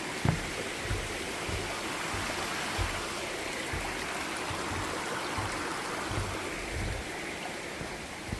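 Small waterfall on a mountain stream, water rushing and splashing steadily, with a few scattered low thumps.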